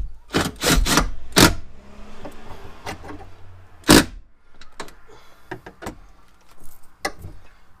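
Knocks and clicks of the battery terminal cover and its fixings being handled and bolted back on in a BMW E60's battery compartment, several in quick succession at the start and one sharp knock about four seconds in. Between them, something small and motorised whirs steadily for a second or two.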